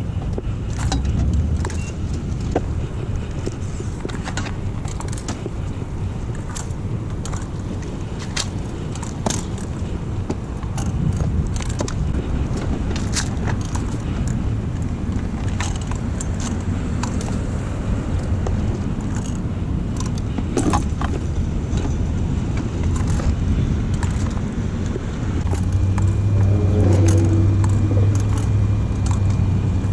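Car engine running, louder over the last few seconds, with scattered short clicks and light rattles over it.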